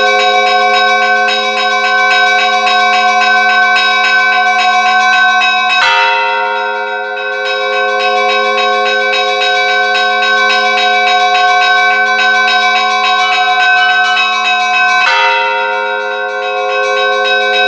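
Church bells ringing together in a rapid, continuous peal: several bells of different pitches struck many times a second, their tones sustaining between strokes. The ringing pattern changes abruptly twice, about six and fifteen seconds in.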